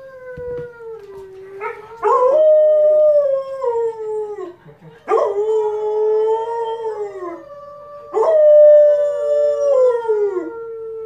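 A husky howling along with a wolf howling from the TV: long, loud howls that fall slowly in pitch, with a fresh howl starting abruptly about 2, 5 and 8 seconds in, and the two voices overlapping.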